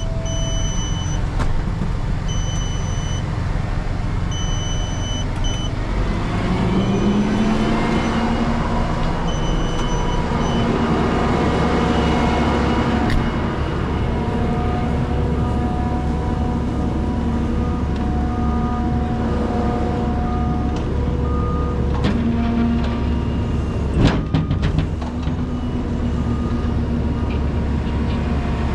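Heavy equipment engine running with intermittent beeping. About six seconds in, the engine picks up speed and then holds steady under load, with a few knocks later on. This fits the rollback's bed being worked or the mini excavator being driven onto it.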